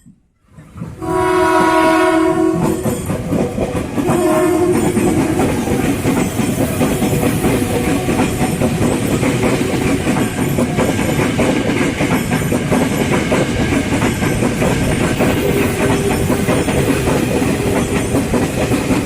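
KRL electric commuter train sounding its horn, a long blast and then a shorter one, then running past close by, its wheels clattering over the rail joints.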